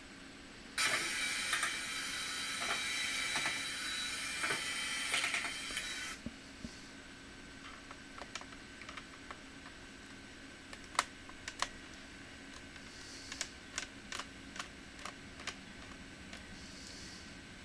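A loud, steady high-pitched hiss for about five seconds, then scattered light clicks and taps of small plastic and metal parts being handled during a laptop teardown.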